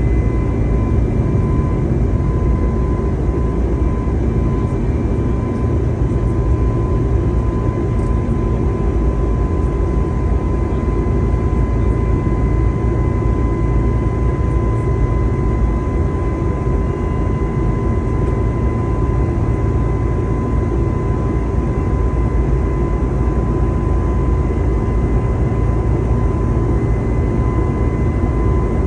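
Airbus A320neo cabin noise in flight: a steady, loud rumble of the jet engines and rushing air, with a thin steady whine held on top.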